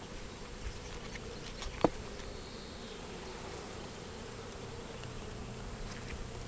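Honeybee colony buzzing steadily around an open hive, a continuous hum. A single sharp knock comes a little under two seconds in.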